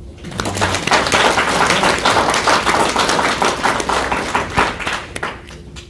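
Audience applauding, a dense patter of many hands clapping that dies away after about five seconds.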